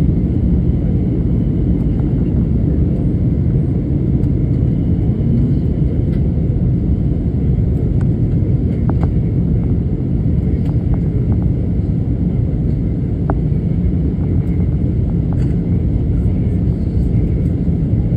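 Steady low rumble of an airliner's jet engines and rushing air, heard inside the passenger cabin while the aircraft descends toward landing.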